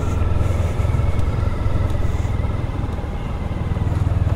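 Motorcycle engine running steadily at low revs with an even low rumble.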